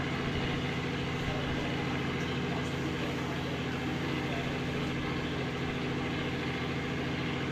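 A steady, low engine drone that does not change, under a faint background murmur of crowd noise.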